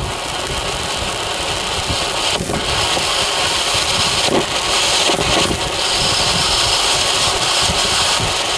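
Broekhoff "White Fountain" Category 1 ground fountain firework burning, a steady rushing hiss as it sprays white sparks, with a few sharper crackles near the middle.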